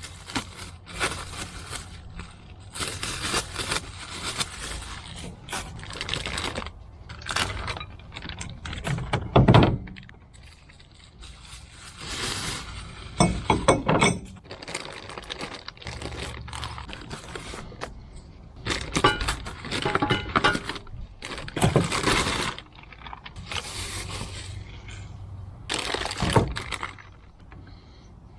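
Hardware being unpacked and handled by hand: irregular clatters, scrapes and clinks of metal rack parts, with keys jangling from the rack's key lock.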